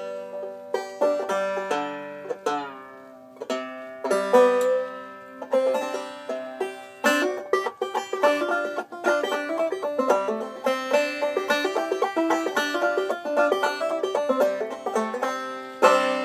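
Bart Reiter open-back banjo, with no resonator, being played: a few slower plucked notes, then a busier run of notes from about four seconds in.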